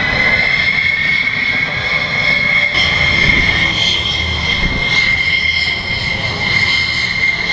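Thunderbirds F-16 Fighting Falcon jet engines whining at taxi power as the jets roll past. A steady, loud high-pitched whine rises slightly at first and then holds, over a low rumble.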